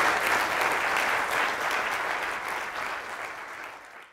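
Audience applauding, dense clapping that slowly dies away over the last second and then cuts off suddenly.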